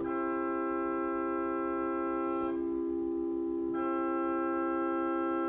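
J. J. Binns pipe organ holding a sustained chord. Higher octave pitches sound over it, drop out about halfway through and come back a second later: the swell octave to great coupler being drawn, cancelled and drawn again.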